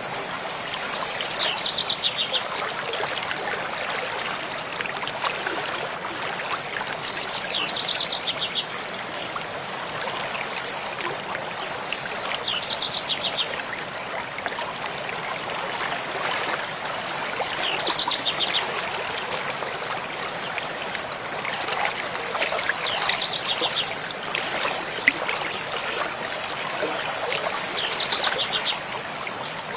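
A mountain stream flowing steadily over rocks, with a songbird singing a short phrase of rapid high notes about every five seconds.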